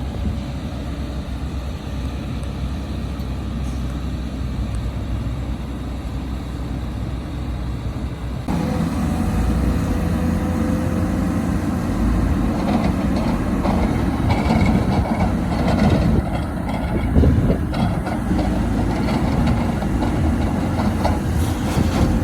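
Excavator diesel engine running steadily with a faint hydraulic whine. About eight seconds in it jumps abruptly louder, and several seconds of knocks and rattles follow.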